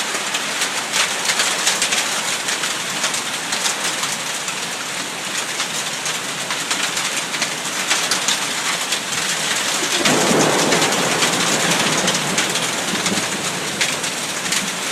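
Heavy rain pouring down steadily in a summer thunderstorm, with a deeper rumble swelling up about two-thirds of the way through, taken for thunder.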